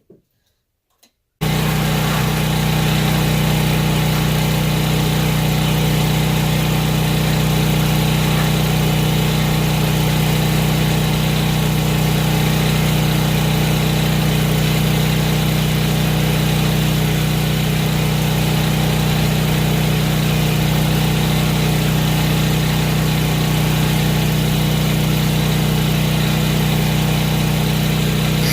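Harbor Freight electric angle grinder switched on about a second and a half in, after a few light handling knocks, then running at a steady speed with a constant motor hum and high hiss.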